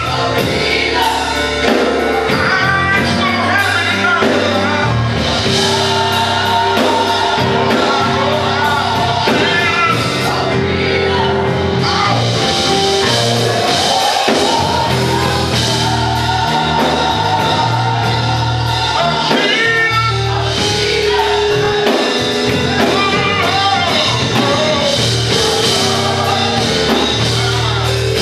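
Live gospel music: singing over a church band of drums, guitar and keyboard, with sustained bass notes and a steady drum beat.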